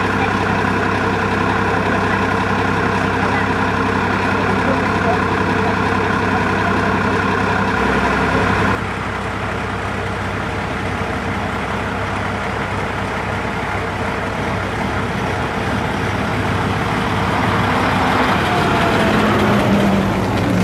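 Diesel engine of a vintage bus idling steadily. About nine seconds in, the sound changes abruptly to a vintage Southdown single-deck bus driving up the lane, its engine getting louder as it pulls past close by near the end.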